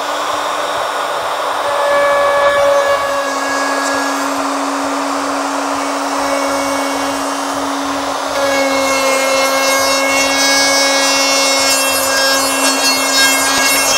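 Ryobi 2 HP plunge router running at speed with a steady high whine, its bit cutting a fin-box slot into a surfboard through a jig. The cutting noise gets a little louder about two seconds in and again near the middle.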